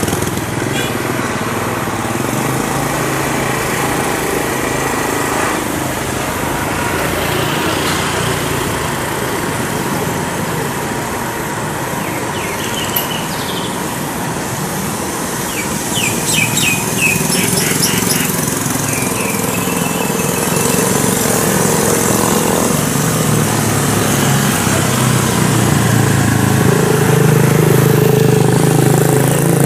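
Road traffic: the diesel engine and crawler tracks of a Kubota DC93 combine harvester running as it drives off down the road, mixed with motorbike engines. A few short high squeaks come about halfway through, and a motorbike engine passing close is loudest near the end.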